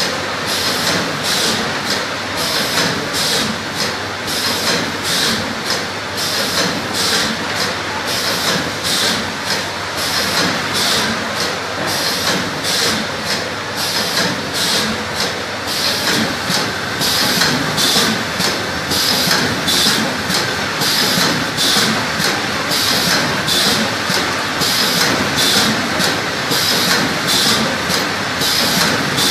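Automatic woven sack fabric cutting machine running steadily, its feed and cutting mechanism working in a fast, even, repeating rhythm over a continuous mechanical hum.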